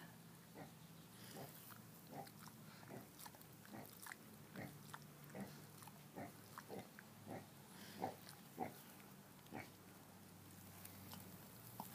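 Kunekune pig's soft mouth smacks and sucking clicks, faint and repeated about twice a second, thinning out near the end.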